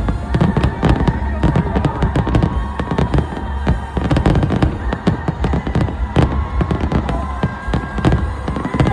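Fireworks going off in dense, rapid succession: many overlapping bangs and crackles with no break.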